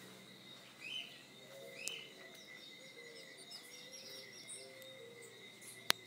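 Several birds chirping and calling: two louder chirps in the first two seconds, then a run of short quick chirps, over a steady high tone. One sharp click just before the end stands out as the loudest sound.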